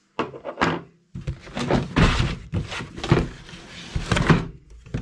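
Cardboard box being handled and its printed outer sleeve slid off the plain brown inner box: cardboard rubbing and scraping with several thunks, after a short pause about a second in.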